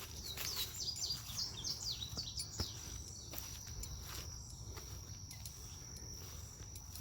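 A songbird singing a rapid run of short down-slurred notes for the first two and a half seconds, over a steady high-pitched insect drone that goes on throughout.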